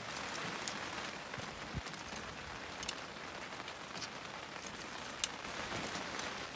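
Rain falling steadily, with scattered drops ticking sharply now and then.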